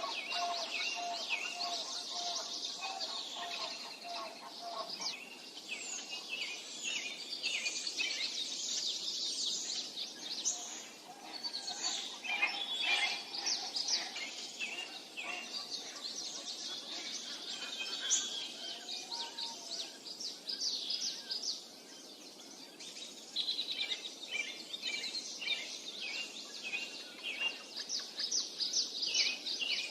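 A chorus of songbirds chirping and singing, many short high calls overlapping. A lower note repeats steadily for the first few seconds, and the chorus thins briefly about two-thirds of the way through.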